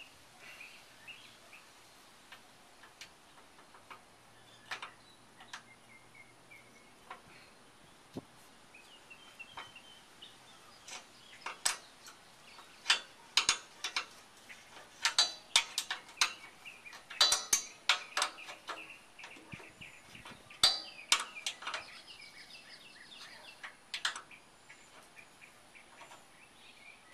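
Irregular metallic clinks and knocks of hand tools working on the steel side-step bracket under a pickup truck, coming in clusters through the middle of the stretch. Birds chirp in the background.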